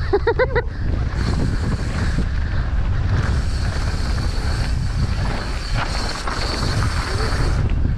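Wind buffeting the microphone during a fast mountain-bike ride, a steady low rush with the bike's rolling trail noise underneath.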